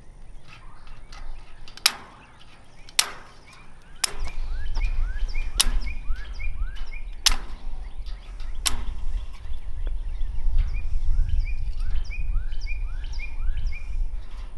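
Tin snips cutting chicken wire: six sharp snips, the last about nine seconds in. A bird repeats a short chirping call over and over, with a low rumble underneath from about four seconds in.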